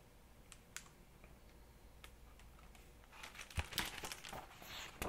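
Hardcover picture book being handled and its page turned: a few faint clicks, then a cluster of paper rustles and taps starting about three seconds in.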